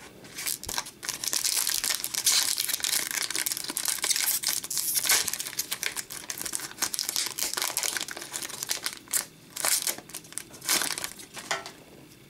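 Hockey card pack wrapper being torn open and crinkled: a dense crinkling crackle for several seconds, then a few short separate crinkles before it stops.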